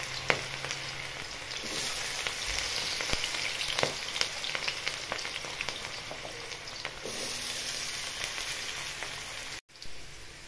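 Diced potatoes sizzling in hot oil in a steel kadhai with mustard and fennel seeds: a steady frying hiss with scattered sharp crackles and pops. The sound cuts out for a moment near the end.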